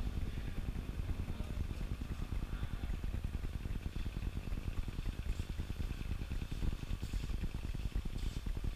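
Steady low rumble of background noise, with a few faint ticks about seven and eight seconds in.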